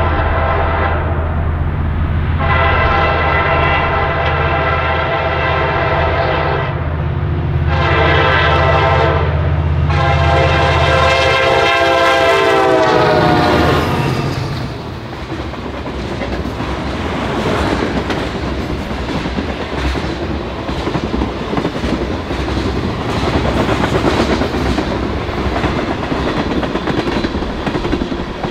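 A Nathan K5LA five-chime air horn on a KCS diesel locomotive sounds the end of the grade-crossing signal: a long blast, a short one, then a long one whose pitch drops as the locomotive goes by, over the low drone of the diesel engines. After that, freight cars roll past with the clickety-clack of wheels over rail joints.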